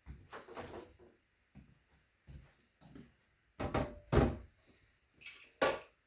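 A series of separate knocks and clatters of hard objects being handled and set down, the loudest two close together just past the middle and a sharp one shortly after.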